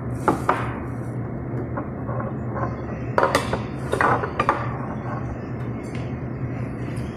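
Fork clinking and scraping against a plate several times, a couple of strikes near the start and a cluster around three to four and a half seconds in, over a steady low room hum.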